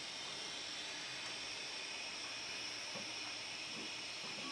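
Steady, faint hiss of background noise; the soldering of the circuit-board joints makes no distinct sound of its own.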